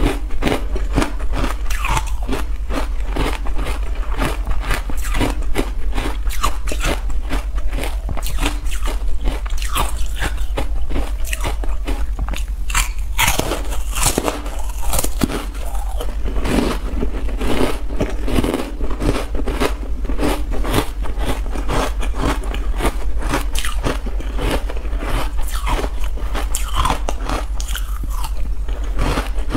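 Carbonated ice coated in matcha powder being bitten and chewed close to a clip-on microphone: continuous crunching and crackling.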